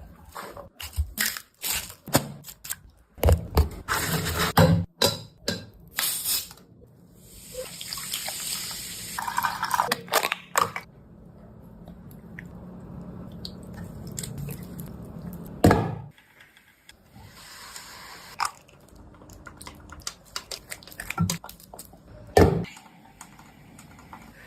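Kitchen food-preparation sounds: scattered knocks and clatter of utensils and food, with a stretch of running or pouring water partway through.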